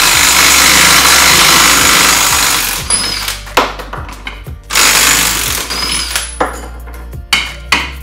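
Cordless impact gun hammering at a stuck nut on a radiator's oil cooler fitting: one long burst of about two and a half seconds, then a shorter burst of about a second. Near the end come several sharp hammer blows on the fitting.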